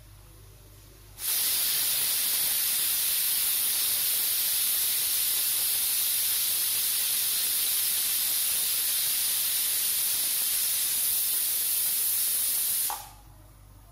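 Prestige aluminium pressure cooker whistling: steam escapes past the weighted vent with a loud, steady hiss that starts abruptly about a second in and dies away near the end. The cooker is at full pressure, and this is one of the whistles counted to time the cooking of the mutton.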